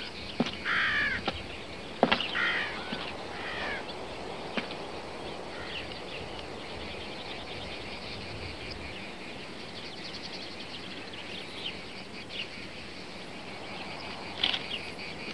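A bird cawing a few times, with a few sharp clicks, over a faint steady outdoor hiss. Near the end a revolver clicks twice, dry-firing on an unloaded gun.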